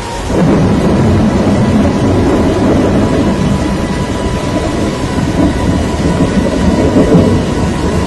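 Loud, steady rumbling of a severe storm, setting in about half a second in and holding without break.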